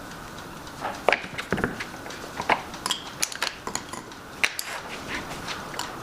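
Irregular light clicks and taps of small hard objects being handled, some sharper than others, over a steady background hiss.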